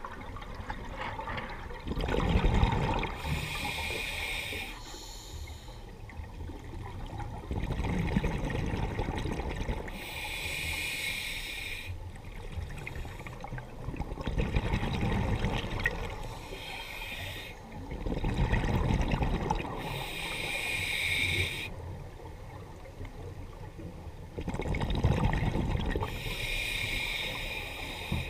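Scuba diver breathing through a regulator underwater: a hiss with each inhalation through the demand valve, then a low gurgling rumble of exhaled bubbles. The cycle comes round slowly, about four breaths in all.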